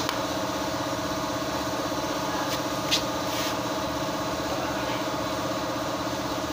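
A steady, slightly pulsing engine hum from a running machine. About three seconds in come one or two light taps, as a wooden hammer handle knocks a piston through a ring compressor into its cylinder bore.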